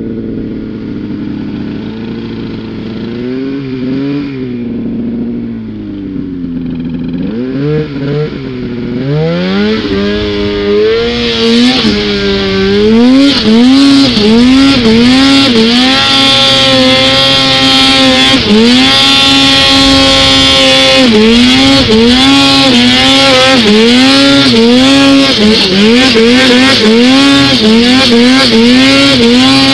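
Snowmobile engine revving while the sled ploughs through deep powder, its pitch rising and falling with repeated throttle blips, about once a second later on. It grows louder over the first dozen seconds.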